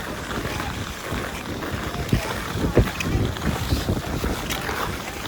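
Ice skates gliding and scraping over rough outdoor ice, with irregular sharp clicks of the blades, under a steady rumble of wind buffeting the microphone.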